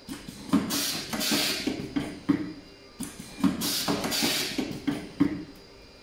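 Automatic optical fiber jacket stripping machine running two stripping cycles about three seconds apart. Each cycle is a series of sharp mechanical clacks with a burst of hiss in the middle.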